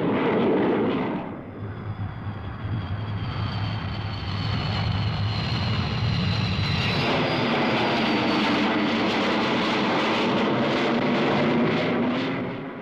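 Jet fighter engines running as the aircraft pass: a high whine slowly falls in pitch, then gives way about halfway through to a broader rushing roar.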